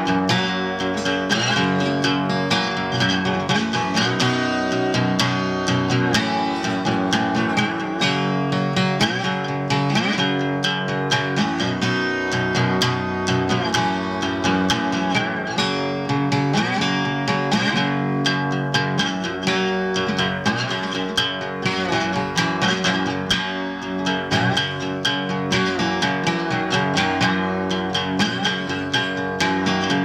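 Background music led by acoustic guitar, plucked and strummed at an even pace.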